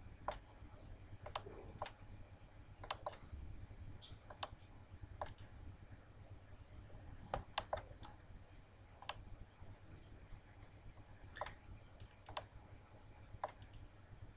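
Faint, irregular clicks of a computer mouse button and keyboard Ctrl key, some in quick pairs and short runs, as the GIMP clone tool is set and applied, over a low steady background hum.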